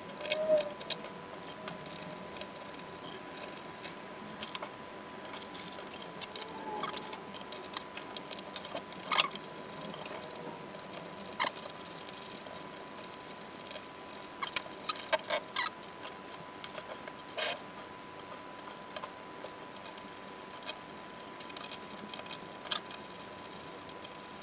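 Scattered light clicks and taps of small hardware being handled by hand: 20 mm screws and printed belt clamps being fitted and screwed in on a 3D-printed CNC frame. A faint steady tone sits underneath.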